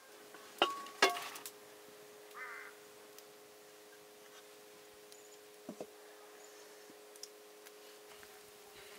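Two sharp metallic clinks about half a second apart, the second ringing briefly, then a short faint call and a soft knock later over a low steady hum.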